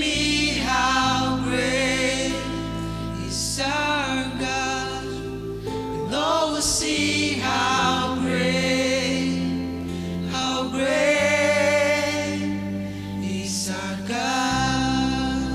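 A slow worship song: voices singing over sustained low accompaniment chords, with the chord changing every few seconds.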